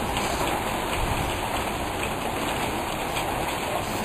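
Steady rain falling on a paved street and garden, with a few sharper drop hits close by.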